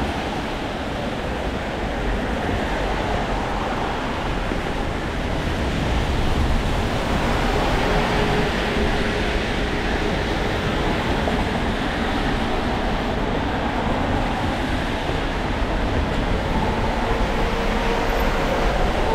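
Steady hiss of rain on a city street, with a low rumble underneath.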